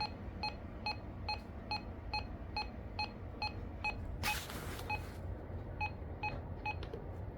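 RadioShack 12-261 weather radio's key beep repeating evenly, a little over twice a second, while its clock is being set. A short burst of noise comes about four seconds in.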